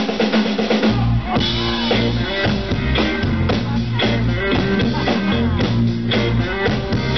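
Live blues-rock band playing: electric guitars over bass and a drum kit, with a steady beat.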